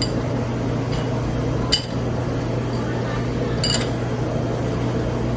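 Netter commercial glass washer running with a steady hum and wash noise, while glasses clink against each other a few times as more are loaded into it.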